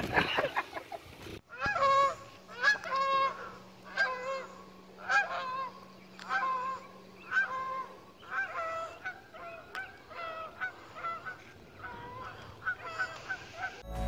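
Geese honking, a steady run of short honks about one to two a second, starting about a second and a half in.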